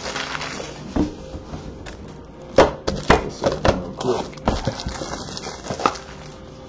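Trading cards and pack wrappers being handled on a tabletop: a series of irregular taps and clicks, busiest between about two and a half and four seconds in.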